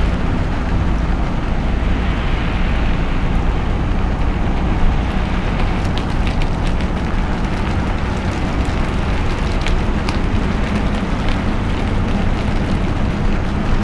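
Car driving on a wet road in the rain: a steady rumble and hiss of tyres and engine, with scattered light ticks of raindrops in the second half.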